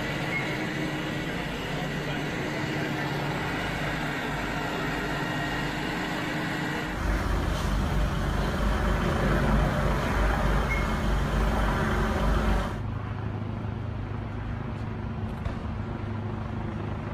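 Street traffic noise with vehicle engines running, changing abruptly twice; between about 7 and 13 seconds in, a louder low rumble comes forward.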